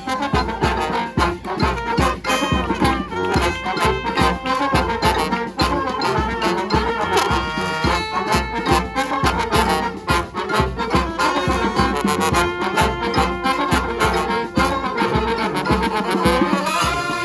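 Live brass band playing: trumpets and trombones, with saxophone, over a steady drum beat. Near the end a pitch slides upward.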